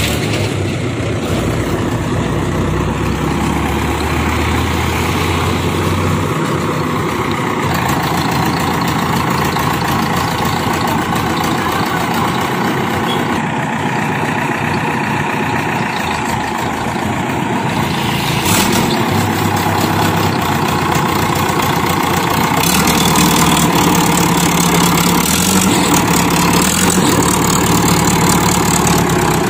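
Diesel engine of a JCB 3DX backhoe loader running steadily, its note changing as the machine works. There is a brief sharp sound about two-thirds of the way through, and the engine grows louder near the end.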